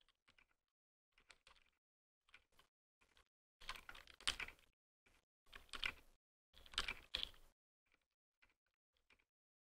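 Typing on a custom 60% mechanical keyboard with brass plate and Durock Dolphin silent linear switches lubed with Krytox 205g0: soft, damped keystrokes in quick runs. They are much louder for a few seconds in the middle, where the recording is boosted by 20 dB.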